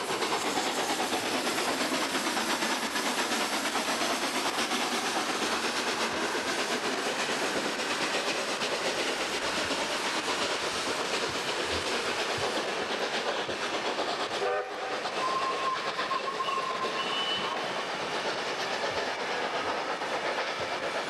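Train running on its track: a steady, dense rushing rattle of wheels on rails. It dips briefly about two-thirds of the way through, and a few short, faint whistle-like tones follow.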